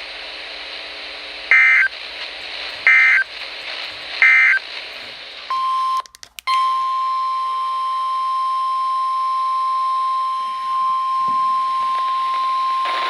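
Three short screeching bursts of Emergency Alert System SAME digital data, about a second and a half apart. Then the 1050 Hz NOAA Weather Radio warning alarm tone, a steady single-pitched tone with a brief dropout just after it starts, which signals that a new warning follows.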